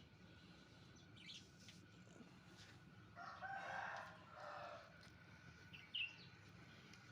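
A bird calling: one drawn-out call of about two seconds, in three parts, a few seconds in, with short high chirps about a second in and near the end.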